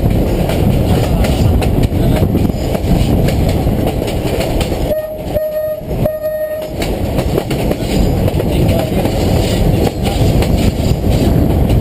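Hershey electric train running along the line, heard from the front cab: a steady rumble with wheel clatter over the rails. About five seconds in, its horn sounds one steady note in three short blasts.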